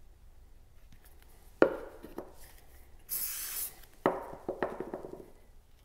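A sharp tap, then a short hiss of CA glue accelerator sprayed from an aerosol can, followed by a quick series of light taps and clicks as playing cards are handled and pressed down on a plywood board.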